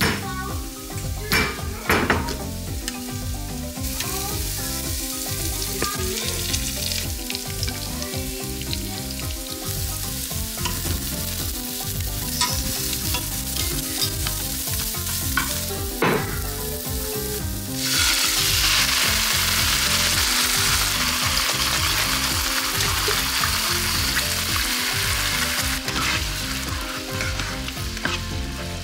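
Diced onion sizzling as it fries in a hot non-stick skillet and is stirred with metal tongs, with a few sharp clacks. About eighteen seconds in, the sizzle turns louder and hissier as tomato sauce goes into the hot pan.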